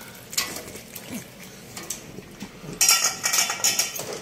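Pocket bully dog eating from a stainless steel bowl, the metal bowl clinking and scraping against the floor, with a louder stretch of metallic rattling about three seconds in.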